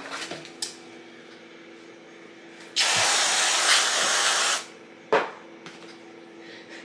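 Aerosol can spraying cream onto a plate in one steady hiss about two seconds long, starting about three seconds in. A short, sharp knock follows about a second after the spray stops.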